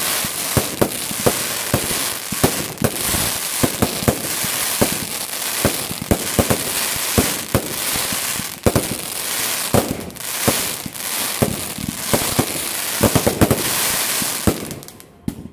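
Aerial fireworks with white crackling stars going off in quick succession: a dense, continuous crackle studded with many sharp pops, dying away near the end.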